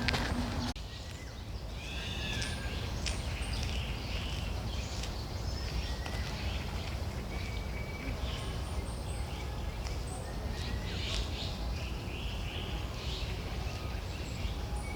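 Several birds chirping and calling in short, scattered notes over a steady low background rumble. A louder mixed noise cuts off abruptly under a second in.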